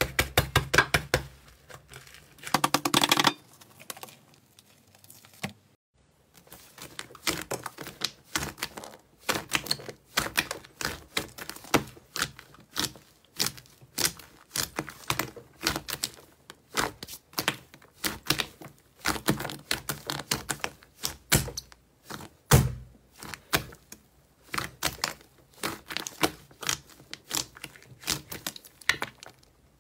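Thick gray slime pressed and poked by fingers in a glass bowl, giving rapid, irregular clicking and popping, several pops a second, with one heavier thump partway through. Before it, about three seconds of slime squished by hand, then a brief pause.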